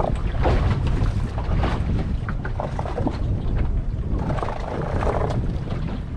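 Wind buffeting the microphone aboard a small boat at sea: a heavy, uneven low rumble with irregular gusts.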